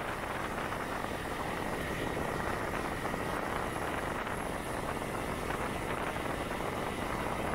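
Honda CG 125 Titan motorcycle riding at steady speed: the single-cylinder engine runs under a constant rush of wind on the microphone.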